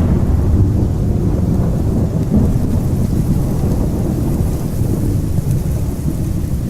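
Horror ambience sound effect: a continuous low, rumbling drone, like distant thunder, held steady with no distinct events.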